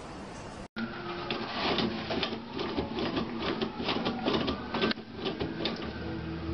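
Toilet-paper roll spinning and rattling on its wall holder as a cat paws it, a fast uneven clatter of clicks with the paper rustling as it unspools.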